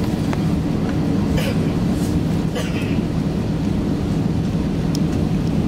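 Steady cabin noise inside an Airbus A321-211 taxiing: a continuous low hum from its CFM56 engines at idle, with a few faint light clicks.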